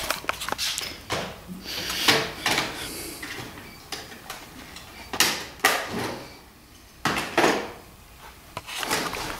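Metal clinking and scraping in several short, separate bouts, from a thread tap and a small brass fitting being handled and worked in the screw hole of a steel fuel tank clamped in a vice.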